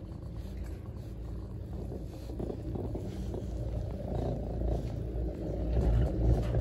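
Heron-Poma chairlift's haul rope and chair grip running over a tower's sheave wheels: a steady low rumble that grows louder as the chair passes under the tower, loudest near the end.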